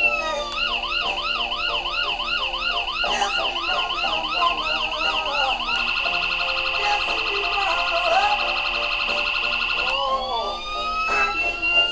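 Electronic police siren module built into a 1/18 scale model police car, switched through its patterns: a falling wail at the start, then a yelp sweeping up and down about twice a second, then about four seconds of a very fast warble, and near the end a slow rising wail.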